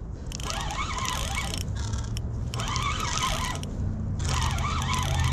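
Fishing reel being cranked in three short bursts of about a second each while a big carp is reeled in. A low steady hum sets in underneath about two seconds in.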